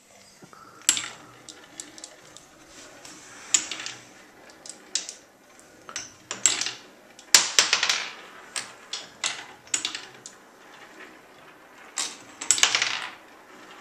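Glass marbles and wooden toy pieces clicking and clattering as they are handled, in irregular bursts of sharp clicks with longer rattling runs about a third of the way in, just past halfway, and near the end.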